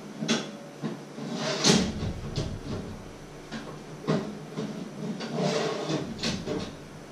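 Irregular metal knocks, clatters and scrapes from a baking tray and oven rack being handled in an open electric oven, with the loudest clunk about two seconds in.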